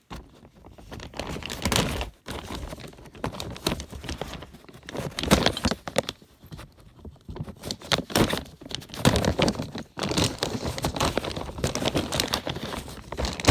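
A heavy sealed plastic bag crinkling and rustling on and off as it is handled and cut open with a knife.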